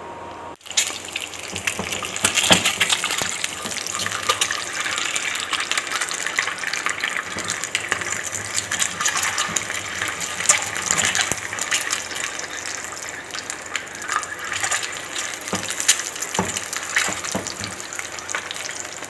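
Peeled hard-boiled eggs frying in hot oil in a pan: a steady sizzle with dense crackling, starting suddenly under a second in.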